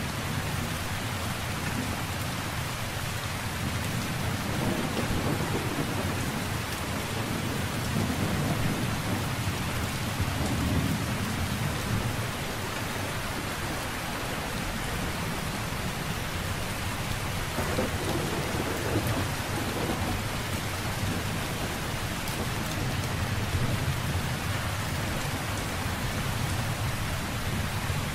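Steady heavy rain falling, with low rolls of thunder rumbling through it. One long roll comes in the first half and another a little after the middle.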